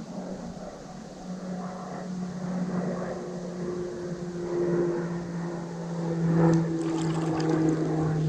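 An engine droning steadily and growing louder, its pitch dropping slightly in the last couple of seconds. A few light clicks come near the end.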